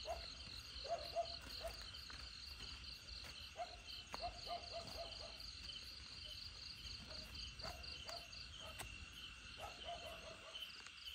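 Night insects, crickets, chirping in a steady pulsing chorus. Short low animal calls repeat in small clusters every second or two, and a few sharp clicks sound.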